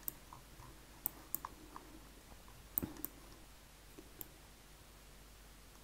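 Computer mouse clicking about six times, faintly, two of the clicks in quick pairs, over quiet room hiss.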